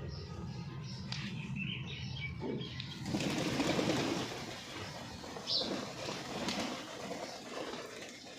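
Birds at feeding: calls and chirps, then about three seconds in a sudden louder burst of rustling, like wing flapping, that dies down after a second or two.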